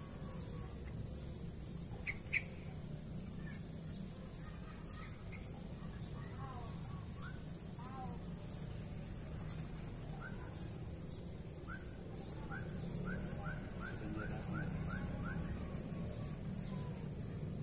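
A steady, high, pulsing insect drone over a low outdoor rumble, with a bird calling now and then. Past the middle comes a quick run of about ten short rising notes, roughly two a second.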